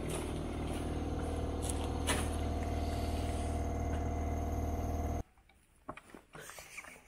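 A motor or engine running steadily with a low, even hum and a few knocks over it, cutting off abruptly about five seconds in; faint clicks and taps follow.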